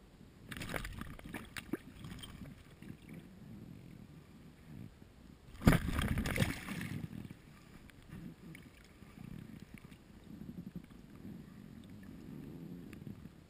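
Water splashing and sloshing as a hooked northern pike is handled and lifted from the water beside a float tube, with clicks and rustles of handling. The loudest splash comes about six seconds in.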